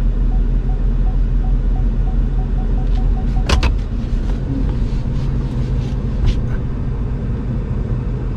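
Cab of a Ford Super Duty dually pickup with the engine rumbling steadily, while the parking-sensor warning beeps faster and faster as the truck backs toward the car behind it. About three and a half seconds in there is a sharp click, the beeping stops as the truck is shifted out of reverse, and a few lighter clicks follow.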